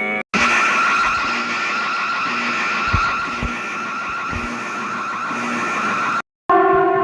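Harsh, noisy screeching alarm sound from an emergency alert recording, with a wavering shrill edge. It starts abruptly and cuts off suddenly near the end.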